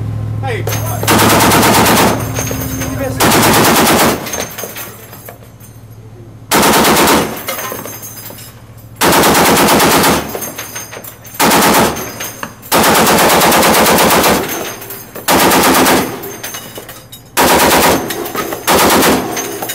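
Shipboard machine guns firing in bursts of automatic fire, about nine bursts each lasting half a second to two seconds, with short pauses between them.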